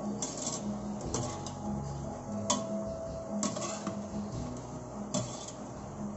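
A cooking utensil knocking and scraping against a stainless steel pot while braised pork steak is stirred and turned in its sauce: irregular sharp clinks, about seven of them, over background music.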